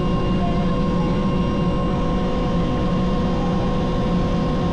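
Helicopter running steadily: a constant engine and rotor drone with a steady whine on top.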